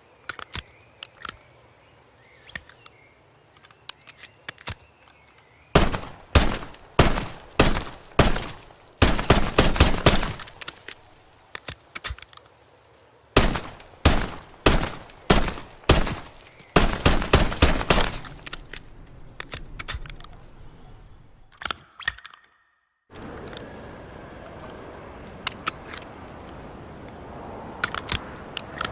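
Makarov PM 9×18mm pistol firing: a few faint clicks, then strings of loud sharp shots at about two a second, some coming in quicker clusters. After a pause, a steady hiss with a few light clicks.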